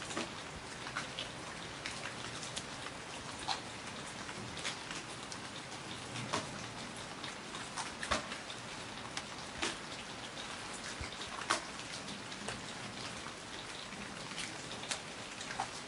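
Heavy rain falling steadily: a dense, even hiss of rain with many sharper individual drop hits standing out at irregular moments.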